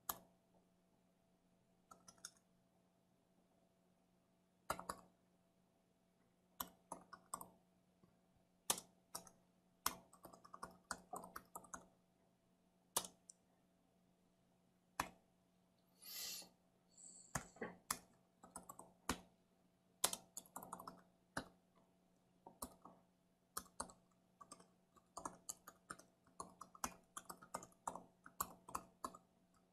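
Computer keyboard typing, faint: irregular clusters of keystrokes with short pauses between them, and a brief hiss about halfway through.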